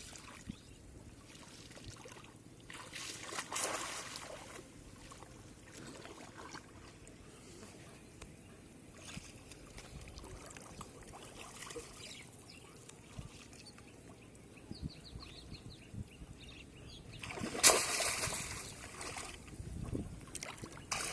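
Shallow water sloshing and trickling as it is stirred, with a brief louder splash near the end.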